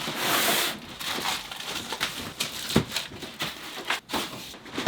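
Cardboard box and packing material being opened and handled, with rustling and crinkling, loudest in the first second, then scattered knocks and clicks.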